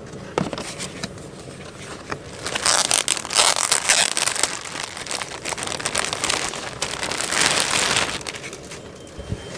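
Clear plastic bag crinkling and rustling in two long stretches as a heated vest is pulled out of it, after a short knock near the start.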